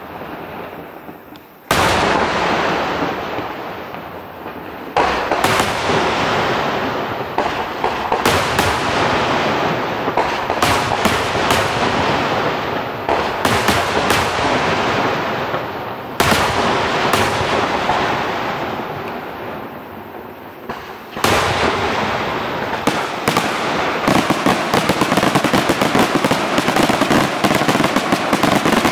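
Aerial firework shells bursting in a professional display: a series of sudden loud bangs, each trailing off over a second or more. Near the end the bursts come fast and close together in a continuous crackling string of reports.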